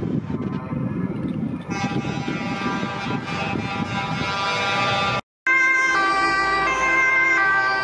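Road noise from a police motorcycle and trucks driving by. After a sudden cut about five seconds in, a loud siren sounds, holding steady tones that step in pitch.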